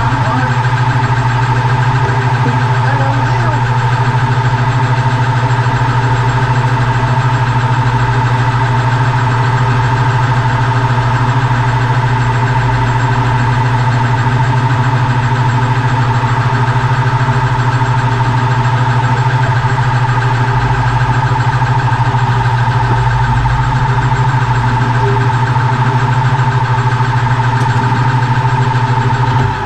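Metal lathe running steadily with a loud, even hum while the turning tool takes a light facing cut on cold-rolled steel spacers. The hum drops sharply near the end.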